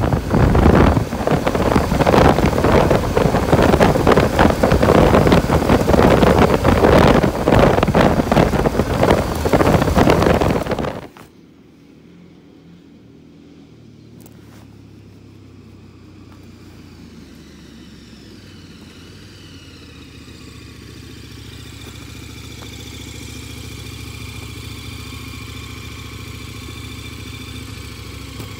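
Riding a motorcycle on a gravel road: loud wind rushing over the microphone mixed with engine and road noise, which cuts off suddenly about eleven seconds in. After that a motorcycle engine idles steadily at a low level, while another motorcycle's engine grows gradually louder as it approaches.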